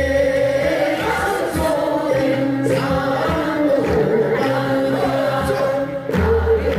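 A group of Korean folk (minyo) singers singing together into microphones over an instrumental backing, amplified through stage speakers; the low backing swells back in about six seconds in.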